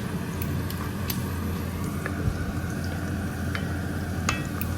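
Pot of meat-and-potato stew boiling uncovered, with scattered small pops and ticks from bursting bubbles over a steady low hum.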